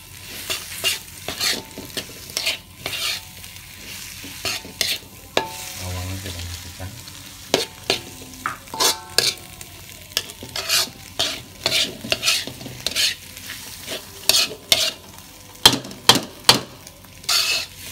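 Metal spatula stirring and scraping food around a wok over the heat, in sharp strokes about twice a second, with the food sizzling between them.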